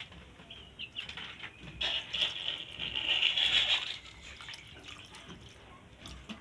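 Water poured from a plastic bottle into a pot of simmering curry, a steady splashing pour of about two seconds that starts about two seconds in. The water is being added to make the gravy.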